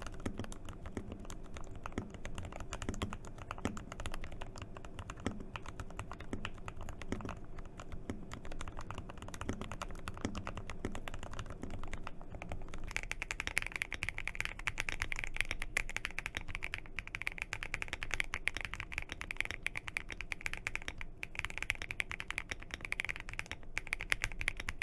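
Continuous fast typing on mechanical keyboards, an Ikki68 and an Akko Mod007 V2 typed in turn for a sound comparison. About halfway through the typing sound changes to a brighter, higher-pitched clack.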